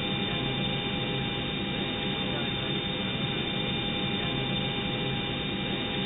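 Steady hiss and hum of old cockpit voice recorder background noise played back from magnetic tape, muffled, with a few faint steady tones running through it.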